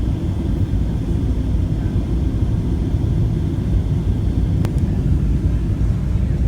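Steady low rumble of a Boeing 737-700 on its landing approach, its CFM56-7B turbofan engines and airflow running evenly, with a faint high whine. A single sharp click about two-thirds of the way through.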